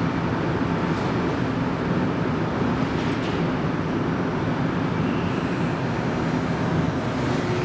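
Montreal Metro train standing at a platform in an underground station, its equipment giving a steady hum and rumble. A faint high tone joins about five seconds in.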